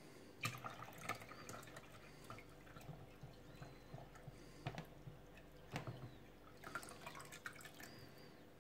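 Water poured from a jug into a drip coffee maker's plastic water reservoir, faint and uneven: small trickles and drips with light knocks on plastic.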